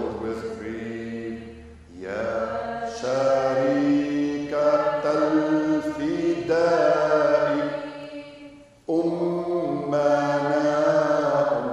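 A slow Lenten hymn to the sorrowing Virgin Mary, sung in long held notes. The phrases break briefly about two seconds in and again near nine seconds in.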